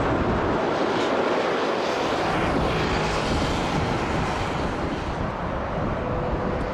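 Airplane engine and airflow noise, a steady rush with a faint steady hum in it.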